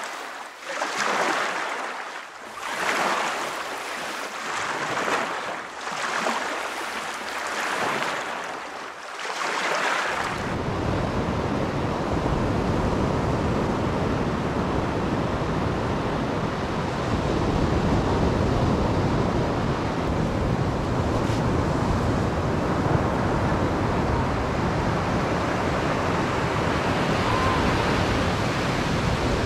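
Ocean waves washing in and out in swells about every two seconds; about ten seconds in this cuts abruptly to the steady rush of surf breaking on a beach, with wind on the microphone.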